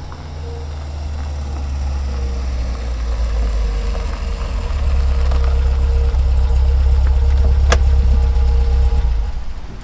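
Car engine idling, a deep steady rumble that grows louder and dies away near the end, with one sharp click about three-quarters of the way through.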